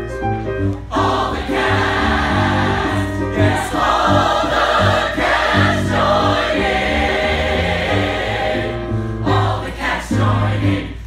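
A small ensemble of men's and women's voices singing together as a chorus, with steady low accompanying notes underneath.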